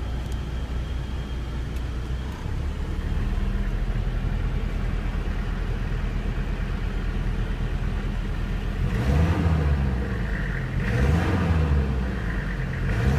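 Toyota Land Cruiser PZJ70's 1PZ five-cylinder diesel engine idling with the air conditioning running, heard from inside the cab. In the last few seconds it is revved up and let back down two or three times.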